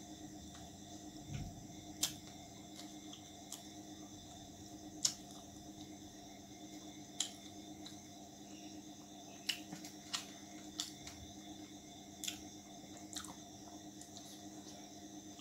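Mouth sounds of a person eating roti with chicken curry: scattered sharp wet clicks and smacks of chewing, irregularly spaced, over a faint steady background hum.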